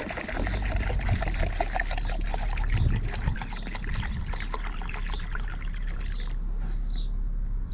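Petrol being poured into a measuring cup to make up a litre of two-stroke mix, with a steady trickling splash that eases off about six seconds in.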